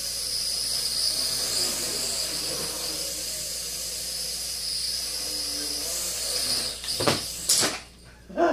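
Traxxas Alias mini quadcopter's rotors and motors whining steadily high-pitched in flight; the whine stops about seven seconds in and two sharp knocks follow, half a second apart.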